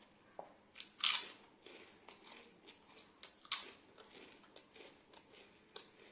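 A person chewing and biting food close to the microphone, with small wet mouth clicks and two louder crunchy bites, about a second in and about three and a half seconds in.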